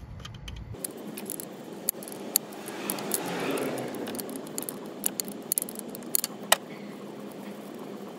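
Irregular sharp metal clicks and clinks of a 14 mm combination wrench fitting onto and turning the fuel return line fitting on a Land Rover Td5 fuel pressure regulator, with a stretch of scraping and handling noise about three to four seconds in.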